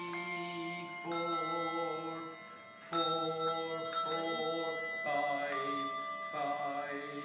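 Handbells rung by a group: notes struck one after another about once a second, several bells ringing on and overlapping into chords, with a brief lull about two and a half seconds in before a loud strike.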